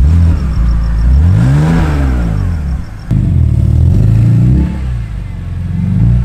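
BMW E46 engine revved after its first start in months: it climbs to a peak and falls back over about two seconds, then is blipped again more briefly.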